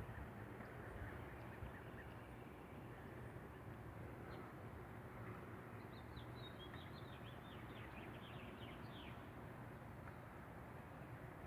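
A bird chirping a quick run of short high notes about six seconds in, lasting around three seconds, over a faint steady outdoor hiss.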